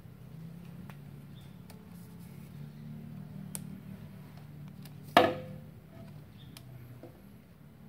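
A single sharp knock about five seconds in, ringing briefly, over a faint low hum and a few light clicks.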